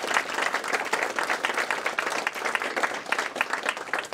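Audience applauding: many hands clapping steadily together.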